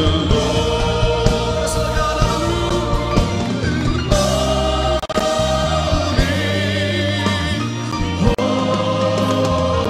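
A gospel choir singing a worship song in long held notes, backed by electric bass and electric guitar, with two brief breaks in the sound.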